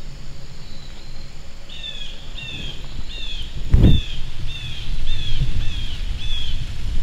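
A bird calling a run of about eight short, slightly falling notes, evenly spaced, over a low rumble of wind or handling on the microphone. About four seconds in, a thump of the camera being moved.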